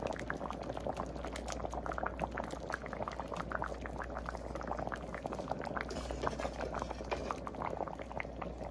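Pot of fish stew broth bubbling on low heat, a steady run of small, irregular pops and blips from the surface.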